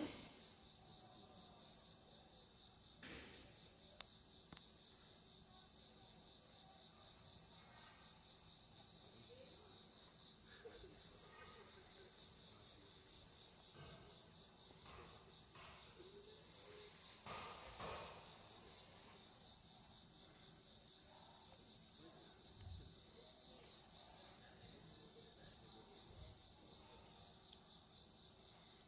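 Steady, continuous high-pitched chirring of crickets in chorus, with a few faint clicks scattered through it.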